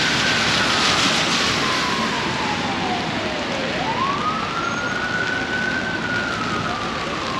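Emergency vehicle siren on a slow wail, rising and falling in long sweeps of about four seconds, over a steady hiss of rain and traffic on a wet street.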